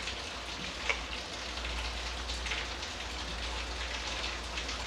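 Hands rubbing a crumbly mix of whole-wheat flour and ghee in a stainless-steel bowl: a steady soft crackle of crumbs rustling against the steel, with faint scattered ticks, over a low steady hum.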